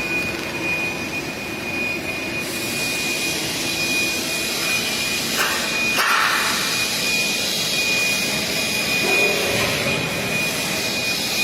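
Argon (TIG) welding: a steady hiss with a constant thin high whine, the hiss growing stronger about two and a half seconds in, and one sharp click about six seconds in.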